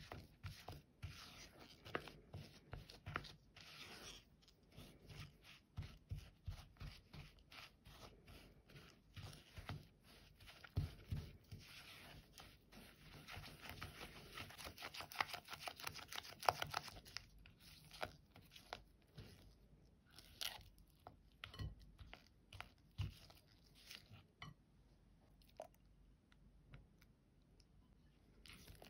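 Spatula mixing powdered sugar into softened butter in a glass bowl: soft, irregular scraping and squishing strokes, busiest about halfway through.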